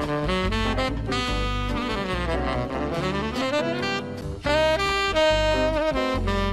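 Tenor saxophone on a 3D-printed Sugal mouthpiece playing a jazz line over a backing track with bass. Quick runs of notes give way to loud held notes about halfway through.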